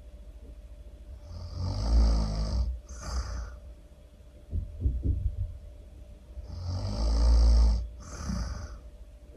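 A person snoring loudly in deep sleep: two long rasping snores on the in-breath, each followed by a short breathy exhale, with a brief low sputter between them.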